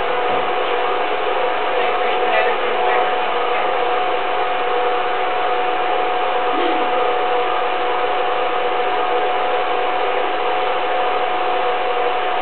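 Film projector running a home-movie reel: a steady mechanical whir with a constant hum-like tone.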